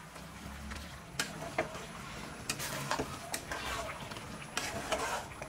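A metal ladle stirring chicken pieces through thick yogurt masala in a metal pot, with scattered clinks and scrapes of the ladle against the pot, over a soft sizzle from the low flame.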